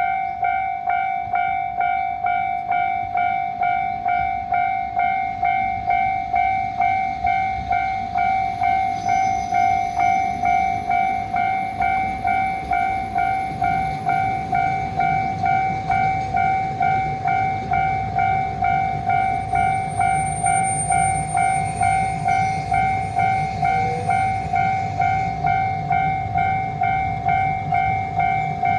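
Japanese railroad crossing warning bell ringing in a steady, even rhythm of just under two strikes a second, while a train runs past from about halfway through, adding a low rumble under the bell.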